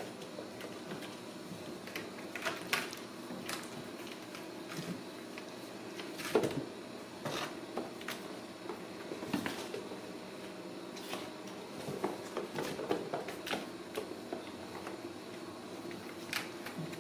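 Ragdoll kittens playing on a tile floor: irregular light knocks, taps and scuffs as they scramble about and bump their plastic and cardboard toys, the loudest knock about six seconds in.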